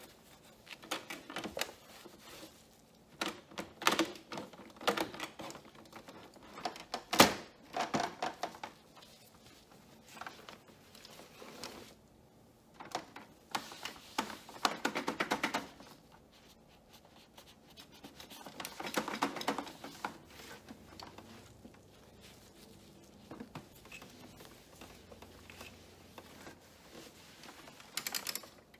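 Yellow cloth wiping a multifunction printer's plastic casing, scanner lid and glass: scattered taps and clicks of hand and cloth against the casing, with a sharp knock about seven seconds in and two longer rubbing strokes around the middle.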